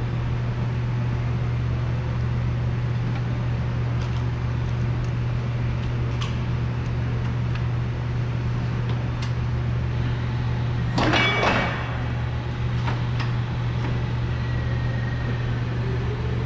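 Operator climbing onto a Cat Mitsubishi FBC18N electric forklift and buckling in: scattered clicks and clunks over a steady low hum, with a louder rattling clatter lasting about a second near two-thirds of the way through. Near the end a faint high whine comes in as the electric truck starts to move.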